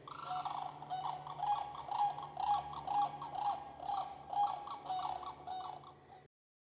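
Background music with a steady beat of short, evenly spaced notes over a held low tone; it cuts off suddenly near the end.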